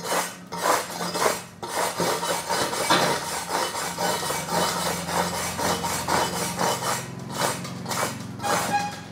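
Slag being cleaned off a fresh stick-electrode weld bead on steel: rapid, repeated scraping strokes, about three a second, over a steady low hum.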